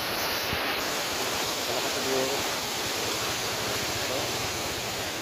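Steady rush of wind and heavy surf against a concrete seawall in a storm, with wind buffeting the microphone.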